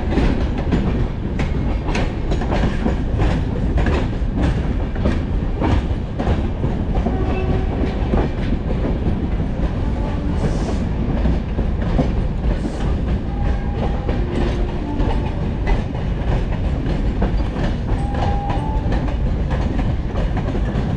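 Passenger train running along the track: a steady low rumble of the wheels on the rails with the clickety-clack of wheels passing over rail joints, the clicks densest in the first several seconds.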